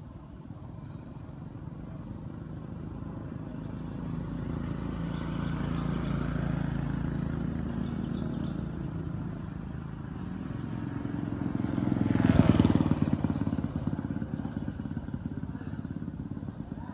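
Motor vehicles passing on the road. One comes up with a low engine hum that swells and fades around six seconds in. A second, louder one sweeps past about twelve seconds in and dies away.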